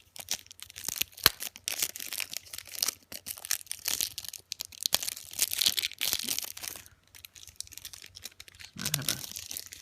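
Plastic packaging being torn open by hand, with crinkling and sharp crackles and a loud snap about a second in. It eases off for a moment near the end.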